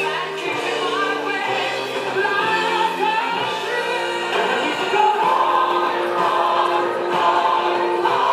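Choral music: several voices singing long held notes that change pitch step by step.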